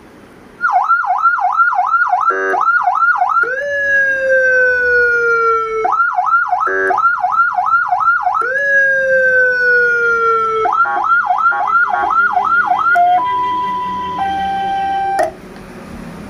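CJB-200W 200-watt electronic siren amplifier cycling through its siren tones. Rapid up-and-down warbling sweeps, about three or four a second, alternate with a long tone that jumps up and slides slowly down. Near the end it switches to a two-note high-low tone, which cuts off suddenly.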